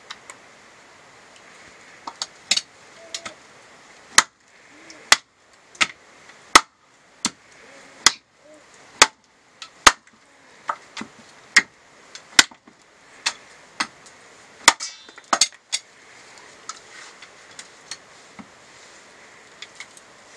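Large knife chopping raw meat on a wooden board: sharp, evenly paced strikes about one every second, starting about two seconds in and stopping a few seconds before the end, followed by faint light taps.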